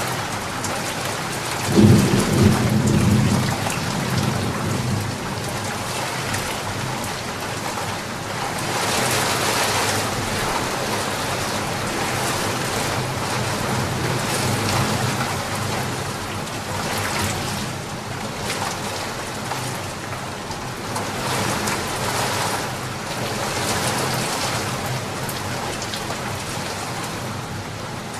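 Steady heavy rain falling, swelling and easing in waves. A clap of thunder breaks about two seconds in and rumbles away over the next couple of seconds.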